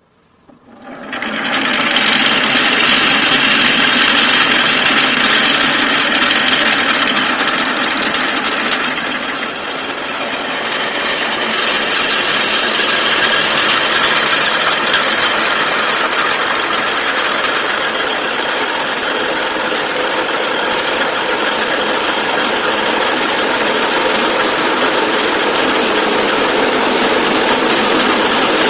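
Many small marbles rolling and clattering down a marble run track in a continuous dense rattle. It starts about a second in, eases briefly near the middle, then picks up again.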